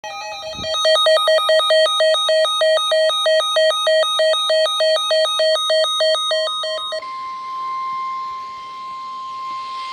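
Electronic emergency alert tones: a buzzy tone beeping rapidly, about four beeps a second, for about six seconds, then switching to one steady, unbroken alarm tone like the weather-radio warning tone.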